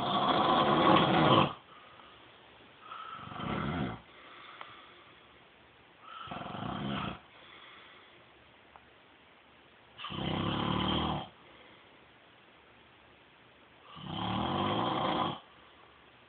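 A man snoring in his sleep: five snores, each a second or so long, about three to four seconds apart, the first the loudest.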